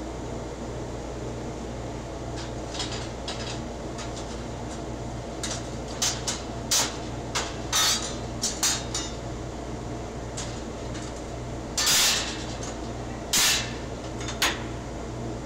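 Cut steel pieces clanking against the steel slats of a plasma cutting table as they are knocked loose by hand, over a steady machine hum. Light clanks start a few seconds in, come thick and fast for a few seconds, then three loud clanks near the end.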